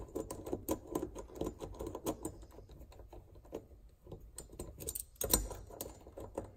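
Bolts being run in finger-tight on the impeller housing of a Volvo Penta raw water pump: many light metallic clicks and ticks, with one louder knock about five seconds in.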